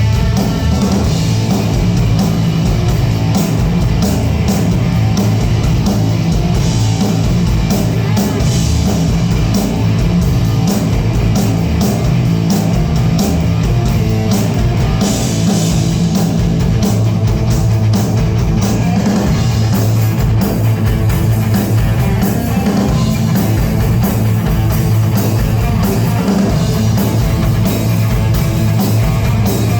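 Rock band playing loud, heavy guitar-driven music with steady drum hits.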